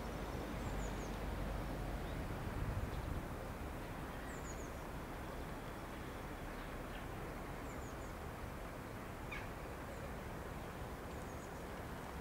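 Steady outdoor background noise with a low rumble that eases after about three seconds, and faint, brief bird chirps now and then.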